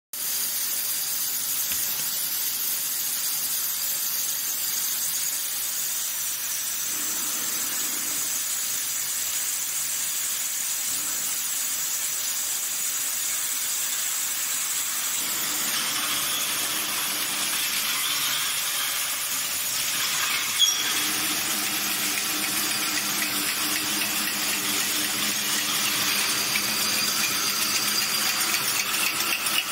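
Automatic ROPP aluminium cap knurling and PE liner wadding machine running: a steady mechanical hiss with a faint high whine. About halfway through the sound becomes fuller, and there is one sharp click about two-thirds of the way in. It grows busier and more jagged toward the end.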